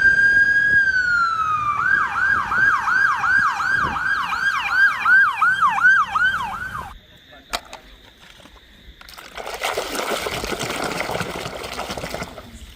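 Electronic toy siren: a steady beep that slides down, then a fast repeating rising wail of about three sweeps a second, cutting off about seven seconds in. A single click follows, then about three seconds of rushing hiss.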